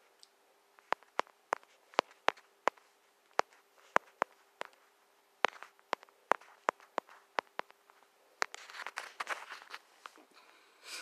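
Irregular sharp taps of typing on a smartphone's touchscreen keyboard, about twenty quick clicks in uneven rhythm, followed near the end by a short burst of noise. A faint steady hum runs underneath.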